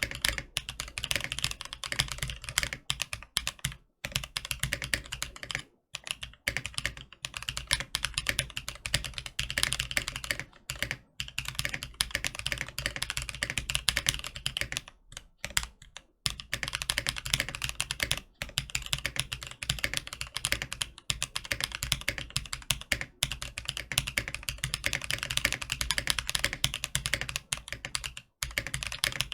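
Typing on a Tofu 65 mechanical keyboard with prototype Gazzew Boba Linear Thock switches (thocky, non-silent linears), in an acrylic case with an O-ring mounted PCB, polycarbonate plate, no case foam and holee-modded Durock V2 stabilizers: a fast, steady stream of keystrokes with a few short pauses.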